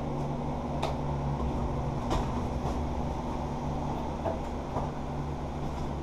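A steady low mechanical hum with a few faint clicks.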